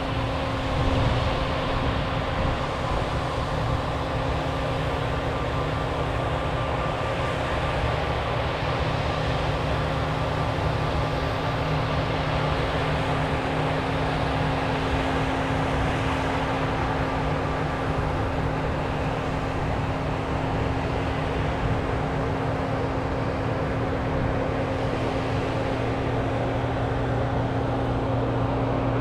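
Combine harvester running steadily while harvesting, a constant drone of engine and threshing machinery with a steady hum.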